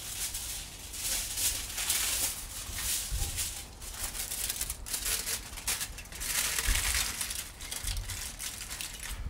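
Aluminium foil being handled and scrunched by hand, crinkling and crackling in irregular bursts, loudest about two seconds in and again around six to seven seconds in.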